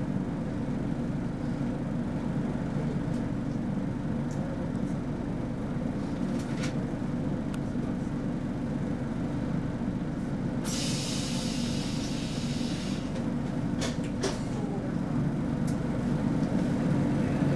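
Inside the cabin of a Roslagsbanan X10p electric multiple unit standing at a platform: a steady low hum from the train's onboard equipment. About eleven seconds in comes a two-second hiss of released compressed air, and there are a few faint clicks.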